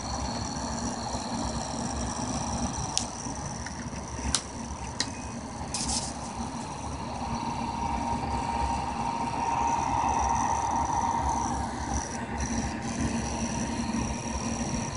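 Homemade pulse motor running steadily on the bench, a steady hum with a high whine above it, and a few sharp clicks a few seconds in.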